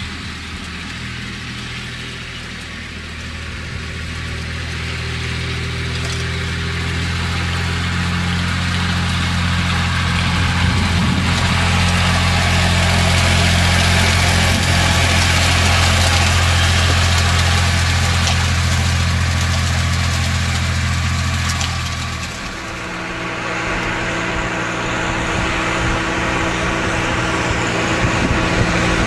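Tractor diesel engine running steadily while driving a PTO-powered rotary hay machine. A hiss of spinning tines and thrown hay swells as the rig passes close, loudest about halfway through. About 22 seconds in, the sound cuts to another tractor engine running as it drives up a farm road.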